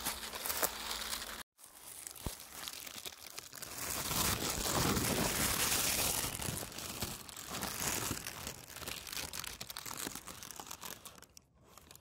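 Thin plastic carrier bag crinkling and rustling as it is held open and handled close to the microphone. The sound is loudest in the middle, with a short dead drop-out about a second and a half in.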